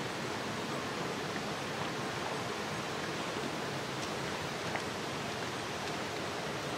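Steady rushing ambient noise, even throughout, with no distinct events.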